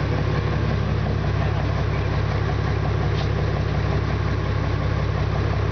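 Fishing boat's engine running steadily, a low even drone.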